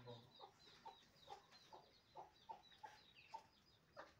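Faint bird calls: a string of short notes, about three a second, over higher chirps.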